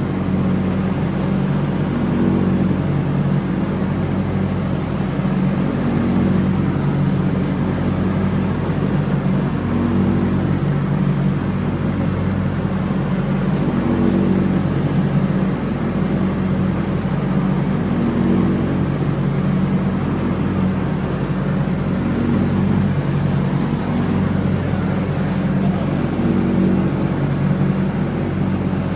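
John Deere X304 lawn tractor's engine running steadily while mowing, its pitch wavering slightly up and down.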